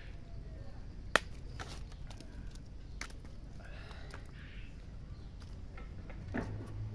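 Small knife cutting thin slivers off a fresh peeled root held in the hand: light cutting sounds with a few short clicks, one sharp click about a second in, over a steady low rumble.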